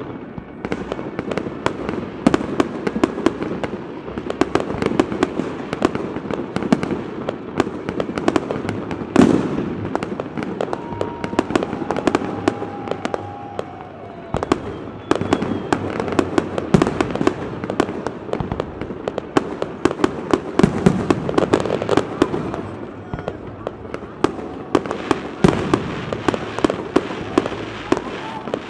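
Fireworks display: a continuous barrage of aerial shell bangs and crackling, with the loudest bang about nine seconds in.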